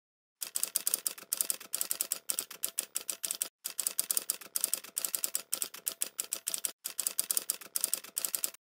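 Typing sound effect: rapid key clicks, several a second, with brief pauses about three and a half seconds in and again near seven seconds.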